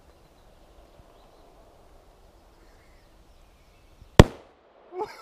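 Plastic PET bottle bomb of water, caustic soda and aluminium foil bursting with a single sharp bang about four seconds in, with a short tail after it. The hydrogen given off by the reaction has built up until the bottle gave way.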